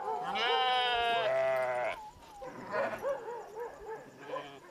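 Goats bleating: one long, loud bleat about half a second in, then several softer, shorter wavering calls.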